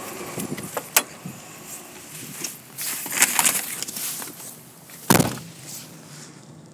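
Handling noise from an iPhone being moved around: scattered clicks and rubbing, a cluster of them in the middle and one loud click about five seconds in. The rumble of the passed freight train fades out under it early on.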